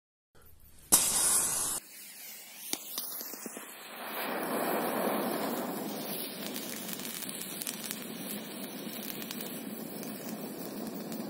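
Funke Tuono Gold 20 flash banger's fuse catching with a loud hiss about a second in, then the firecracker burning with a steady hiss as it pours out smoke during its delay before the bang.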